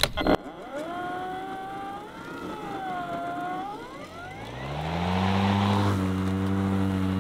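EGO 56V Select Cut cordless mower's electric motors whining: a tone that wavers and then rises in pitch, then a deeper hum that winds up to speed about four seconds in and holds steady.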